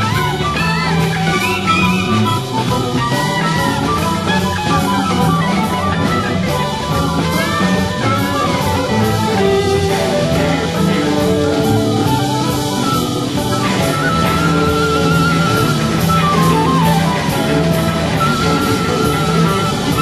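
Instrumental 1970s krautrock: drum kit and bass keep a steady beat under keyboards, with a warbling high line coming in during the second half.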